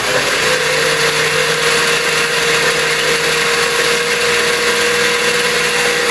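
Countertop blender motor running steadily with a constant hum, blending spaghetti and meatballs into a liquid.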